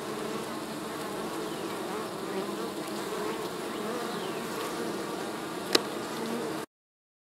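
Honeybees buzzing at a hive entrance: a steady hum of many wingbeats, with the pitch of single bees gliding as they fly past. A single sharp click comes near the end, and the sound cuts off suddenly soon after.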